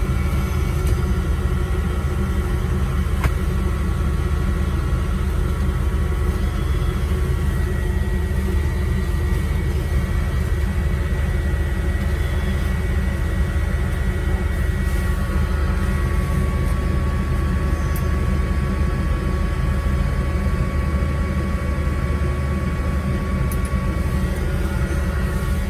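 Aircraft deicing truck's engine and fluid pump running steadily, heard from inside the cab while the boom nozzle sprays. There is a deep drone with thin steady whines above it that shift in pitch a couple of times.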